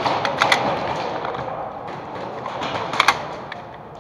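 Airsoft shooting: a quick run of three sharp cracks near the start and two more about three seconds in, over steady background noise.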